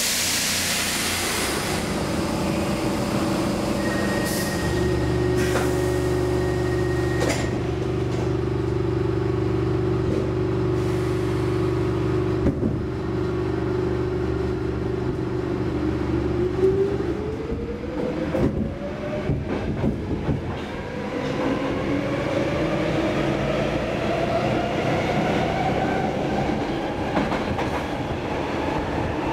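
Stockholm metro C6 car running underground as it pulls away. A burst of air hiss comes at the start, then a steady low motor hum. From about halfway, a whine rises steadily in pitch as the train picks up speed, with a few clicks from the wheels on the track.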